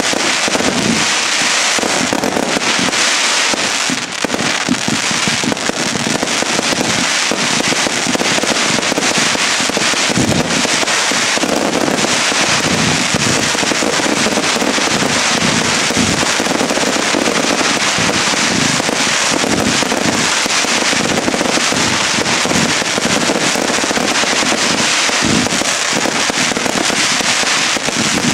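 Fireworks display firing a continuous barrage: rapid, overlapping bangs and cracks from aerial bursts and ground-launched effects, with no let-up.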